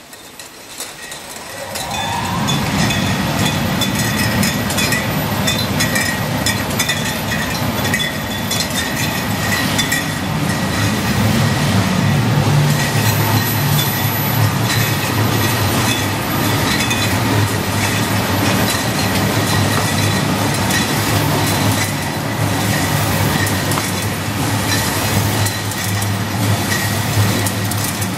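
WA Flex 514 case-packing line for wine bottles running: a steady mechanical clatter of conveyors, belts and moving parts, with rapid clicking over a low hum. It swells up over the first couple of seconds.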